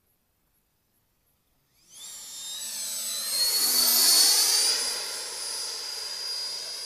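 Radio-controlled EL-39 model jet doing a low pass with gear down: a high-pitched jet whine that cuts in suddenly about two seconds in, swells to its loudest as the model passes close about four seconds in, then carries on more softly as it flies away.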